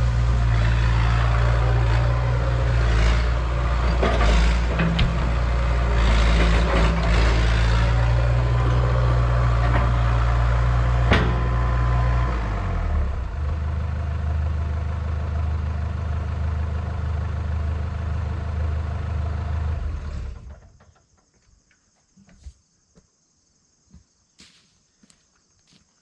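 Hitachi EX100 excavator's diesel engine running at working speed with scattered knocks and clanks. About halfway through it drops to a lower idle, then shuts off about three-quarters of the way in, leaving only faint small noises.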